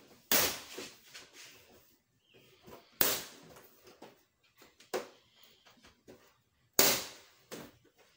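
Plastic retaining clips of a Samsung LED TV's back cover snapping loose as the cover is pulled up off the chassis: three sharp, loud snaps about three to four seconds apart, with softer clicks and creaks of the plastic between them.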